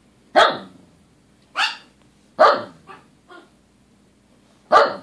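Dog barking: four sharp barks spread over a few seconds, with two softer, shorter barks just after the third.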